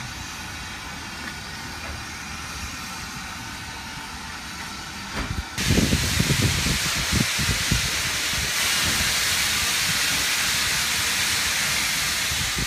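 Steam locomotive letting off steam: a loud, steady hiss that starts suddenly about five and a half seconds in and holds, with a few low thumps during its first couple of seconds. Before it, only a quieter steady background.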